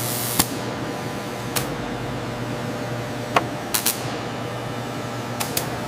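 Steady machine hum in a leather factory, with about six short, sharp mechanical clacks at irregular moments.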